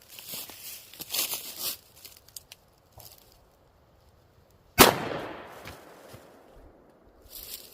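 A single gunshot from a Henry .357 Magnum revolver, with a sharp report about two thirds of the way in and an echo that fades over a couple of seconds. Rustling handling noise comes before it.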